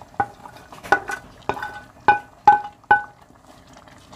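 A run of about seven sharp, ringing clinks of a ceramic plate and wooden spoon knocking against a metal soup pot as diced carrots and other vegetables are scraped off the plate into the pot, the loudest clinks in the second half. A faint simmering sound lies underneath.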